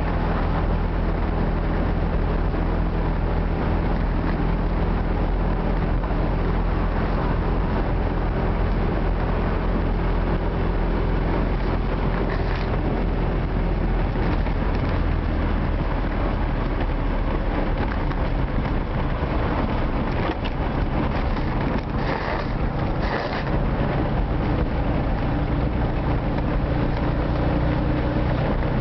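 Retro Moskvich car driving steadily, heard from inside the cabin: a steady low engine drone under an even rush of road and wind noise. There are two short surges of extra rushing noise about three-quarters of the way through.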